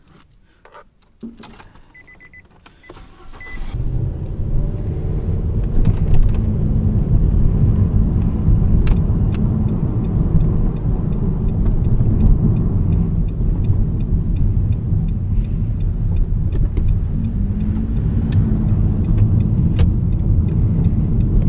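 Clicks and a few short electronic chime beeps, then the 2022 Nissan Rogue's 1.5-litre three-cylinder turbo engine starts about three and a half seconds in and settles into a steady idle. It is started as the final check after work on its cylinder 3 misfire.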